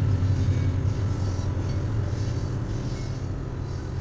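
Diesel locomotives of a freight train rumbling steadily as they pass, low and fairly loud, easing off slightly toward the end.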